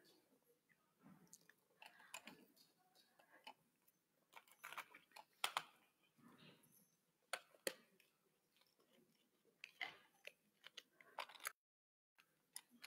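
Near silence broken by faint, scattered small clicks and soft rustles; the sound cuts out completely for about half a second near the end.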